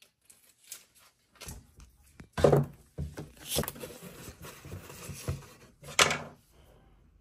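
Handling of a cardboard box and a roll of clear packing tape: rustling and small clicks, with two sharp knocks, one about two and a half seconds in and one about six seconds in.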